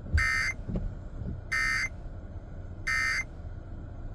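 Emergency Alert System end-of-message data tones heard over the radio: three short bursts of buzzing digital code, evenly spaced about a second and a half apart, which signal the end of the tornado warning message.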